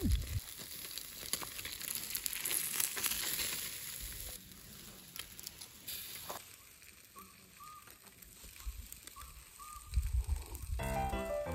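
Fish sizzling and crackling as it grills over charcoal on a small camping grill, a steady hiss with fine pops. About halfway through it cuts to something quieter with a few short high chirps, and background music starts near the end.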